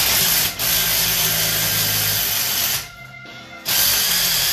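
Cordless power tool running in three bursts against a Ford 9-inch differential case: a short one, a longer one of about two seconds, then another short one near the end.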